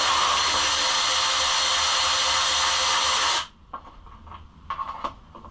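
Power drill with a socket spinning a fender bolt out, a steady whirr that stops abruptly about three and a half seconds in, followed by a few light clicks of the bolt and parts being handled.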